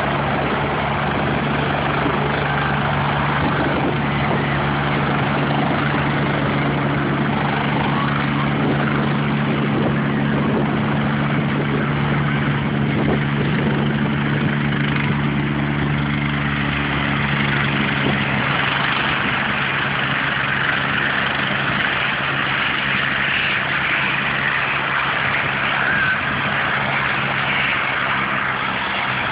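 Helicopter running close by after coming in, with a steady low engine hum under a loud rushing noise of rotor wash. The hum stops about two-thirds of the way through while the rushing noise carries on.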